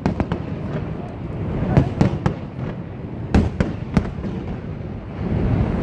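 Aerial fireworks shells bursting: a string of about eight sharp bangs in small clusters over a steady low rumble.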